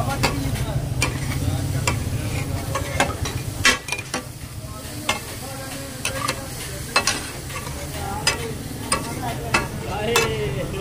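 Metal spatulas clanking, chopping and scraping on a large flat iron griddle (tawa) in irregular sharp strikes, the loudest just before four seconds in, over the steady sizzle of meat frying in butter. A steady low hum runs underneath.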